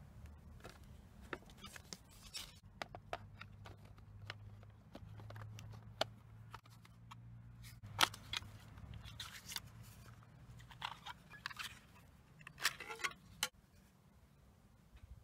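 Plastic cassette tape cases being handled, with scattered clicks and scrapes, and folded paper cassette inserts rustling as they are opened out. A sharp click about eight seconds in is the loudest.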